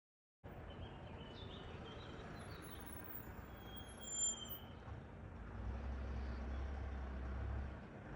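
Distant engine rumble with a steady background hiss, a deeper low rumble swelling a little past the middle, and birds chirping in the first half.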